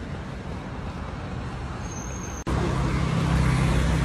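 Street traffic noise, a steady hum of vehicles. About two and a half seconds in the sound cuts abruptly, and a louder low engine drone follows.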